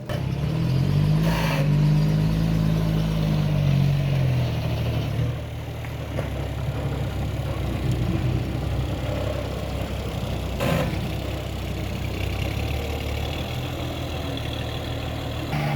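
A heavy machine's engine revs up about half a second in, holds for a few seconds, then settles back and runs on steadily. Two short, sharp noises stand out over it, one early and one past the middle.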